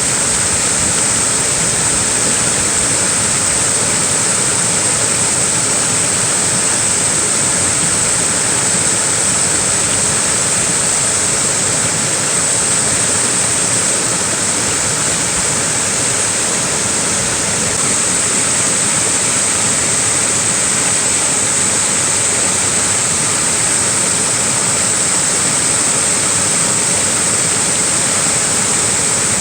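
Small waterfall pouring steadily: an unbroken rush of falling water with a bright hiss, echoing in a valley.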